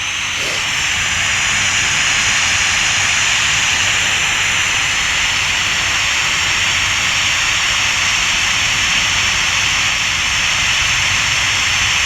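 White noise played from an app: a loud, steady hiss that swells over the first couple of seconds and then holds level.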